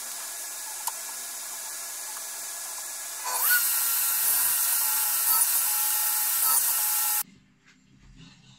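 Steady workshop machine noise, then about three seconds in a table saw motor spins up with a rising whine and runs at speed, much louder. It cuts off suddenly near the end, leaving only faint room sound.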